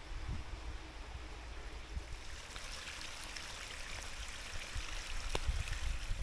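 Water running and splashing down a ribbed concrete drainage channel into a brook. It is a steady rushing hiss that grows louder toward the end.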